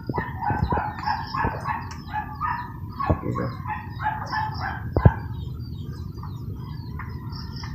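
Chickens clucking and calling in a run of short, repeated notes, with a longer held call near the end. A few sharp knocks come from a plastic container and strainer being handled, the loudest about five seconds in.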